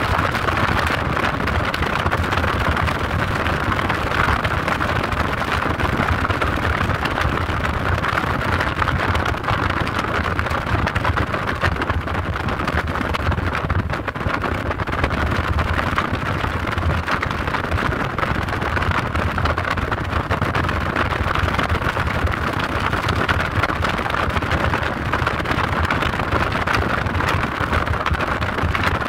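A vehicle driving steadily along a road, heard from on board: a constant rumble of engine and road noise with a rush of air, unbroken throughout.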